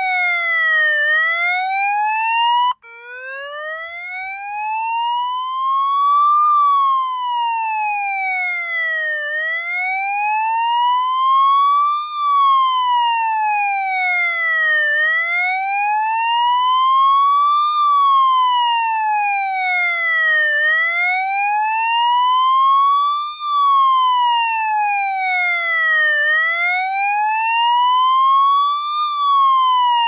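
Police siren wailing, its tone sweeping slowly up and down, each rise and fall lasting about three seconds. About three seconds in, it cuts out for an instant and starts again from a lower pitch.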